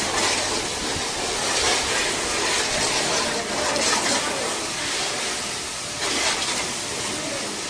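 High-pressure water jet from a car-wash spray gun, a steady hissing spray as it washes down a car's open engine bay.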